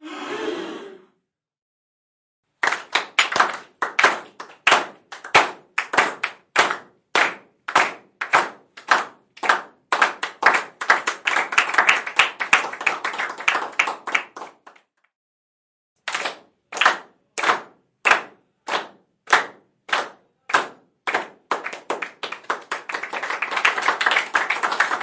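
Small crowd clapping: after a brief burst of crowd noise, a slow, even clap starts and quickens into applause, breaks off for about a second, then starts again slowly and builds back into applause.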